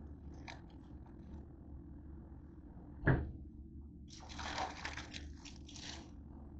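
Plastic tortilla bag rustling and crinkling as it is handled, with one sharp knock about three seconds in and a longer crinkling stretch from about four to six seconds.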